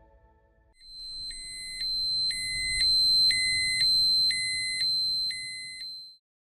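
Electronic fire alarm sounding: a steady high-pitched tone with a lower beep pulsing about once a second, five times, over a low rumble, then cutting off.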